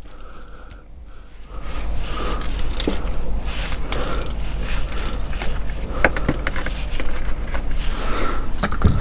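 Metal hand tools clinking and rattling during work on a gearbox plug with a 17 mm hex socket, over a low rumble of handling noise that sets in about a second and a half in.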